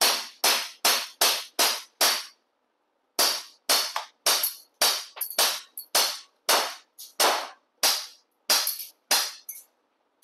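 ASG 1911 US Combat 12 g CO2 blowback BB pistol firing rapid shots, each a sharp crack. A quick string of about seven shots, a pause of about a second, then another string empties its 18-round magazine, the slide locking open on the last shot.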